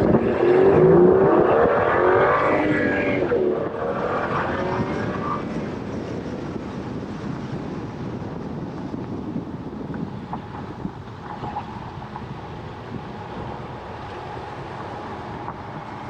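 BMW 535 F10 engine with an aftermarket intake, accelerating hard past in a drive-by. Its pitch glides up and bends over the first few seconds, loudest about a second in, then the sound fades slowly as the car moves away.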